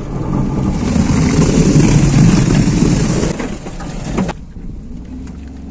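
A car driving through water pouring or splashing over it: a loud rush of water on the car that builds over the first second and cuts off abruptly about four seconds in, leaving the steady hum of the car running.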